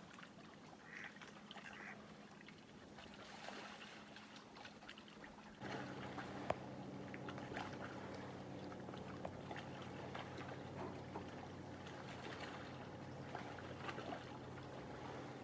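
Faint lake water lapping and trickling at the shore, with small splashes throughout. Under it runs a steady low mechanical hum that grows louder and fuller about five and a half seconds in.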